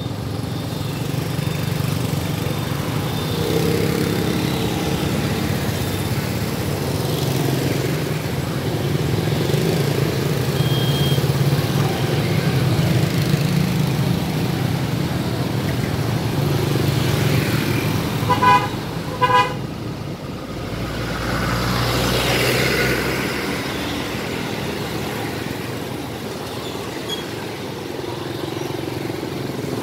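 Road traffic with a steady engine running, and two short horn toots in quick succession about two-thirds of the way through.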